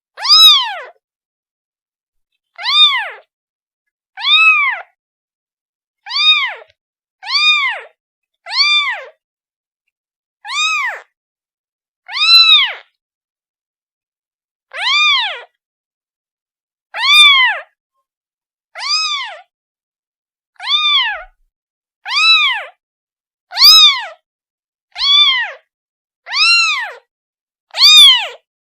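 A kitten meowing over and over, calling for its mother: about seventeen short, high-pitched meows, each rising then falling in pitch, one every one and a half to two seconds.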